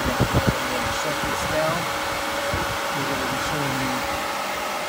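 Steady whirring hum of a running motor-driven machine, with a faint steady tone over it. A few low knocks come just after the start.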